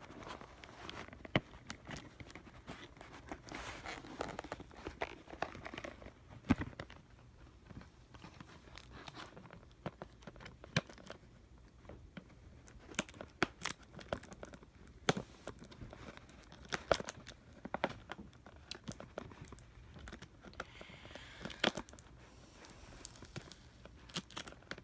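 Hands opening a small box of charging cables: irregular tearing and crinkling of packaging with scattered sharp clicks and taps, in denser spells about a few seconds in and again near the end.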